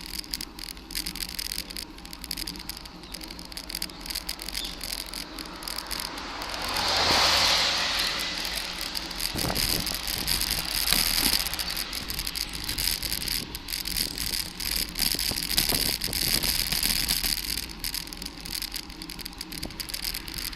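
Bicycle ride heard from the moving bike: light rattling and clicking over the road surface with steady tyre and wind noise. About seven seconds in, a rushing noise swells and fades for a couple of seconds.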